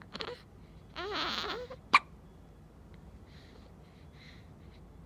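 Newborn baby hiccuping: one sharp hiccup about two seconds in, the loudest sound, preceded by a brief fussy whimper from the baby.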